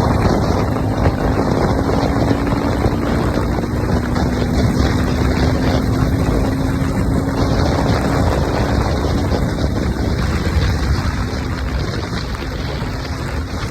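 A motorcycle being ridden at a steady speed: the engine runs with an even, steady note under heavy wind noise buffeting the microphone.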